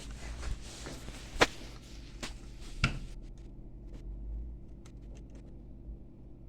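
Two sharp clicks about a second and a half apart, with a few lighter ticks, from handling tools or the board on an electronics repair bench, over a steady low hum; a soft hiss stops about three seconds in.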